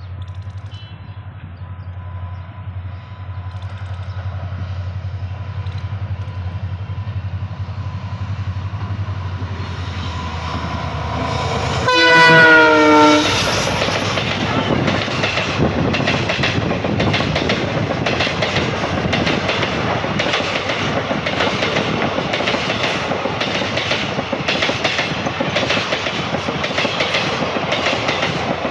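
WDP4 diesel locomotive approaching under power, its engine's low rumble growing steadily louder; about twelve seconds in comes one horn blast of about a second, the loudest sound, dropping in pitch as the locomotive passes. Passenger coaches then roll by with a rhythmic clickety-clack of wheels over rail joints.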